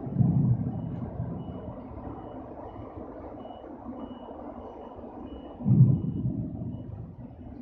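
A vehicle's reversing alarm beeping in a steady, faint, high repeated tone over a low rumble. Two loud low-pitched surges of rumble come, one just after the start and one about six seconds in.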